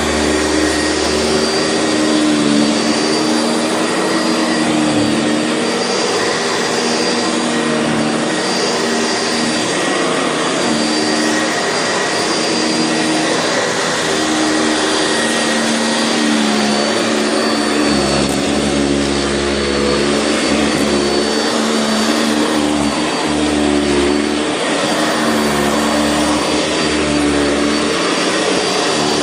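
Sanitaire SC679 commercial upright vacuum cleaner running steadily with a high motor whine, its lower hum shifting every few seconds as it is pushed back and forth.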